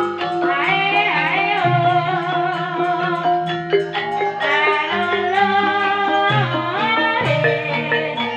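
Live ebeg (kuda kepang) accompaniment music: a sustained, sliding melody line over a steady beat of short percussive strokes.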